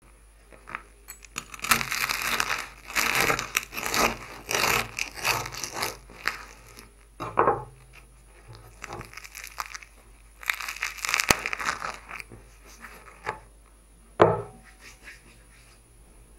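Crackling and rustling as hands handle a crusty home-baked loaf and the cloth towel wrapped over it, in two long stretches with a few sharp knocks between them.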